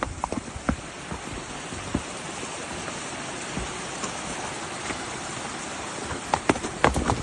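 Steady rush of flowing water, like a creek, with a few horse hoof clops at the start and a cluster of louder hoof strikes near the end.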